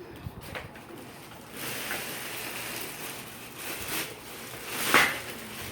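Stroller packaging being handled and rustled during unboxing, with a few light knocks early on and a louder sharp rustle about five seconds in.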